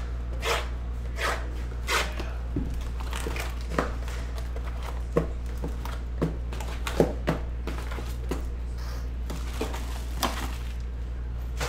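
Cardboard card boxes and foil-wrapped packs being handled: an irregular series of light knocks, taps and rustles as mini-boxes are pulled from their tray and set down, the sharpest knock about seven seconds in. A steady low hum runs underneath.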